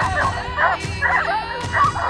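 A team of harnessed sled dogs yelping and whining, many short high-pitched yips overlapping without pause.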